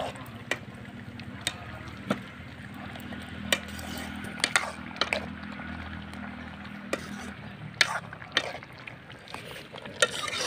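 A metal ladle stirring potatoes in a steaming wok of liquid, clinking and scraping against the pot in short sharp knocks over a steady background.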